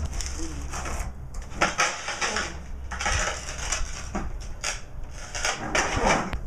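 Irregular scuffs and scrapes of a skateboard and shoes shifting about on concrete.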